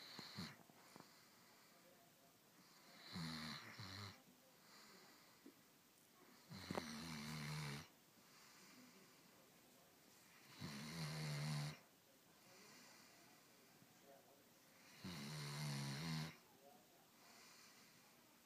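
A sleeping hound snoring: four long, low snores, about one every four seconds, each lasting about a second, with quieter breathing between them.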